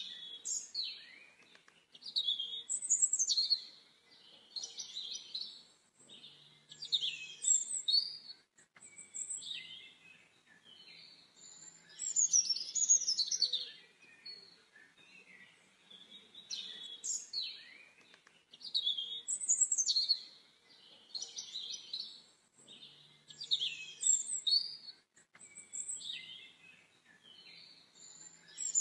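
Small birds chirping and singing in quick high phrases, in bursts a few seconds long with short pauses between. The same sequence of phrases repeats about every sixteen seconds, as a looped recording does.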